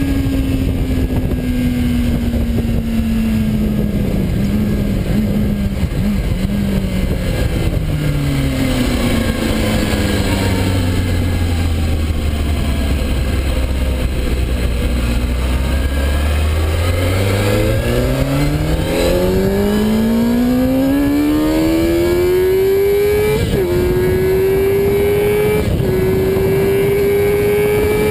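Kawasaki ZX-6R 636 inline-four sportbike engine heard from onboard over steady wind rush. The revs fall away, run low for several seconds, then climb under hard acceleration, with three quick upshifts near the end.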